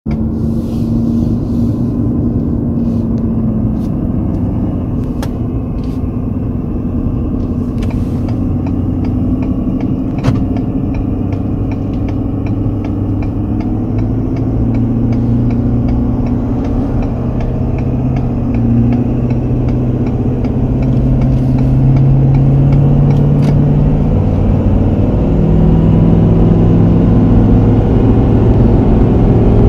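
Road vehicle driving at speed, heard from inside the cab: a steady engine and road-noise drone whose pitch shifts in steps and which grows gradually louder. A few light clicks sound over it.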